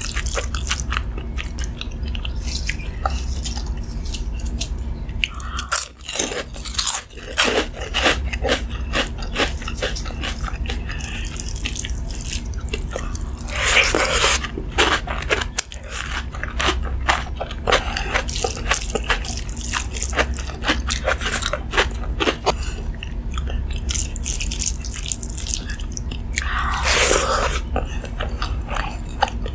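Close-miked person eating: irregular crunching, biting and chewing of food, with two longer, louder swells of noise, one about halfway through and one near the end, over a steady low hum.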